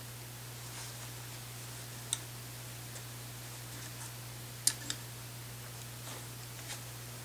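Sparse small clicks and ticks of parts and tools being handled while fitting an AR-15 handguard rail: a sharp click about two seconds in and a close pair around the middle, over a steady low hum.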